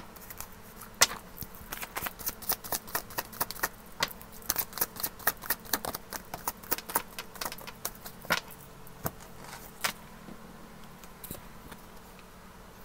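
A deck of tarot cards being shuffled and handled: a run of light card clicks and snaps, several a second, thinning out towards the end.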